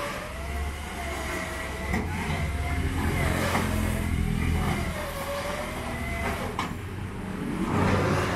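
Flatbed tow truck's engine running while its winch pulls a car up the tilted bed, with a whine that slowly wavers up and down in pitch over a low rumble.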